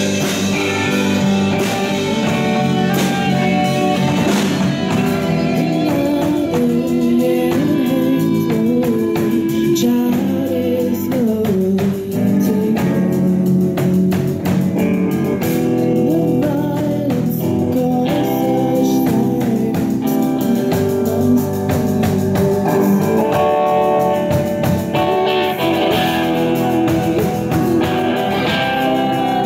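Live rock band: a female singer over electric guitar, bass guitar and a drum kit, with steady drum and cymbal strokes under the sung melody.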